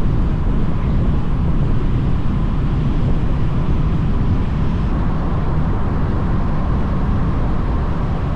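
Steady engine and road noise of a Mazda MX-5 on the move, with a deep rumble underneath.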